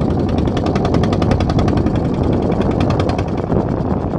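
Boat engine running with a rapid, even chugging, about ten or more beats a second.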